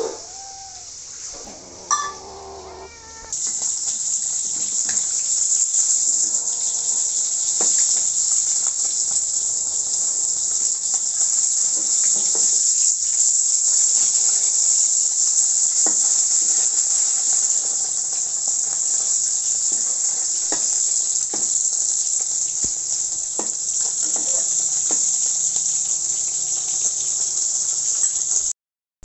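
A kitten meows briefly. About three seconds in, a loud, steady sizzle of small, pre-boiled whole fish frying in hot oil in a wok takes over, and it cuts off suddenly near the end.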